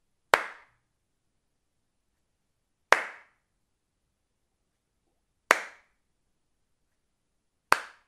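One person's hand claps, made singly: four sharp claps spaced about two and a half seconds apart, each dying away in a fraction of a second.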